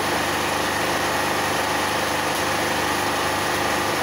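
A steady engine-like drone that holds level without change.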